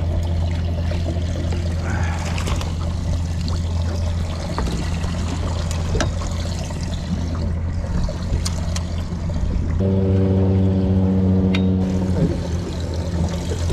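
Water trickling and splashing against a small boat's hull over a steady low hum, with a few light clicks.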